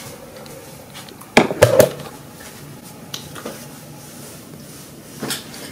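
Quiet room tone broken by a few sharp clicks and clinks of small hard objects being handled. The loudest is a quick cluster about one and a half seconds in, with fainter ones later.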